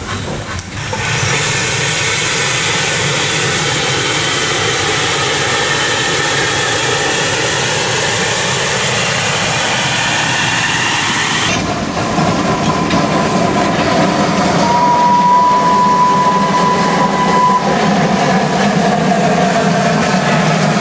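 Narrow-gauge steam tank locomotives running on sugar-mill tracks, with steady steam hiss and running noise. After a cut about halfway through, Orenstein & Koppel 0-8-0T No. 4 moves with its wagons, and a single steady high tone sounds for about three seconds in the middle of that run.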